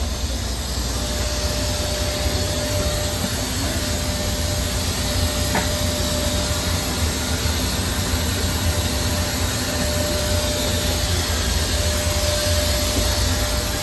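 Steady rush of air with a deep rumble and a faint steady whine, the air-conditioning and machinery noise at the boarding door of a jet bridge and a Boeing 737-900ER. One sharp click about five and a half seconds in.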